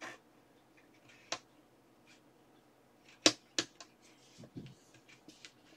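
Scattered light clicks and knocks from handling a wooden futon-drawer panel in a small room. The sharpest click comes about three seconds in, with another just after it.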